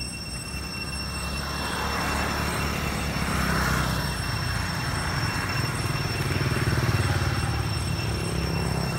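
A motor vehicle passing on the road: engine rumble and tyre noise that swell over a few seconds, followed by a steady low rumble.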